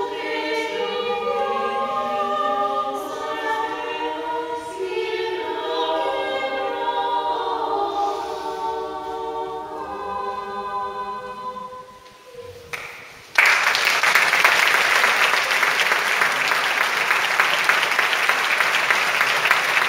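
Women's choir singing a cappella in several-part harmony, closing on a chord that dies away about twelve seconds in. After a brief pause the audience breaks into steady applause.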